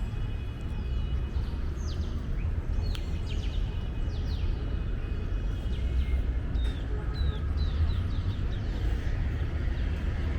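City park ambience: a steady low rumble of street traffic, with many birds chirping and calling over it in short, quick, often falling notes.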